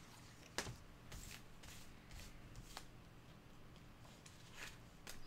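Faint handling of playing cards on a tabletop: a few soft, scattered taps and slides as cards are picked up and set down.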